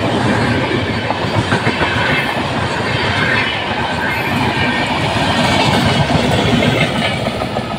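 Indian Railways LHB passenger coaches passing close by at speed: a steady rumble of wheels on rail with rapid clickety-clack over the rail joints, easing off near the end as the tail of the train goes by.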